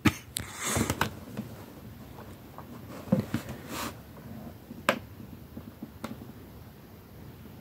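Handling noise from a boxed light-up Ghostface Scary Peeper: the cardboard and plastic-windowed box rustles and knocks as it is moved about. A few sharp clicks follow, one about five seconds in, as the try-me button is pressed and the mask's eyes light up.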